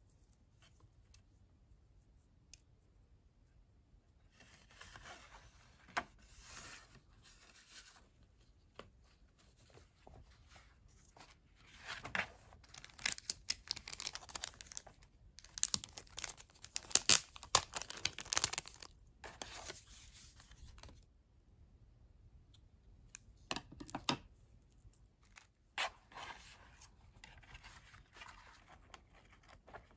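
Crinkly plastic packaging rustled and torn open by hand in several bursts, the loudest and longest lasting several seconds around the middle, with quieter handling noise between them.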